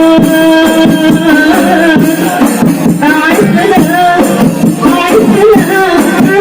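Qasidah rebana music: rebana frame drums beating under a sung melody. A long held note gives way about a second in to a line that bends up and down.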